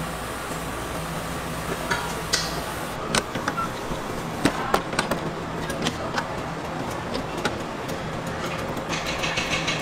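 Steady street and traffic hum around a waffle stand, with scattered sharp metallic clicks and clinks from the waffle irons and their metal counter. A brief hiss comes near the end.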